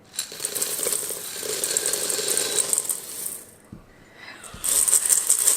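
Dry cereal being poured into a bowl, a dense rattle of many small pieces landing for about three seconds, dropping off, then starting again near the end.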